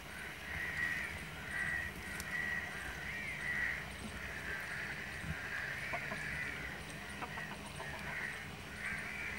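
Birds calling over and over in the background, the loudest sound here, over the steady sizzle of pakoras deep-frying in hot oil in an iron karahi. A few light metal clicks from the slotted spoon against the pan come about six to seven seconds in.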